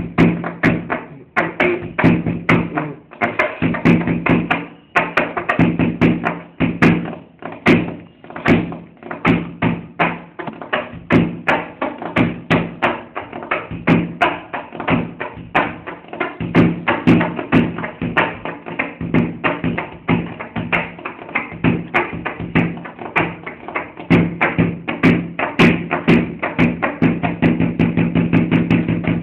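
A bench played as a drum: fast, continuous rhythmic tapping and thunking, many strikes a second without a break, over a steady low tone.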